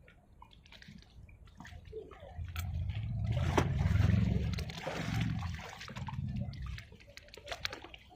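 Sea wave breaking and washing up, swelling to a peak about four seconds in and then fading.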